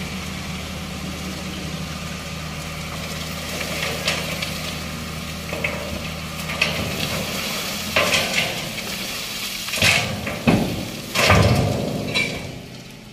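Heavy tipper truck's engine idling with a steady low hum, dropping away about five seconds in. Then a few loud, sudden bumps and scrapes, the loudest about three-quarters of the way through.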